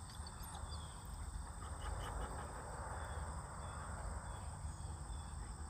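Outdoor rural ambience: a steady high insect trill, a few short faint bird chirps, and a low rumble underneath.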